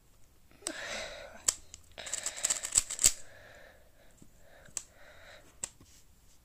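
A plastic 3x3 speed cube being turned by hand: quick runs of layer turns that click and clatter, busiest about two to three seconds in, followed by softer turning and a couple of single sharp clicks.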